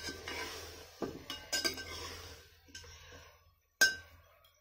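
Metal ladle stirring potatoes and masala in a metal cooking pot, clinking against the pot several times, with the sharpest clink near the end.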